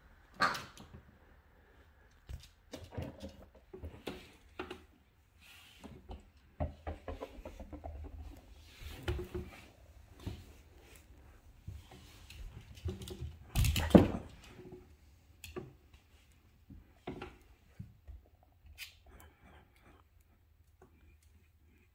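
Miniature schnauzer playing with a toy on a laminate floor: irregular clicks, knocks and scuffs of claws and toy, with one louder knock about fourteen seconds in.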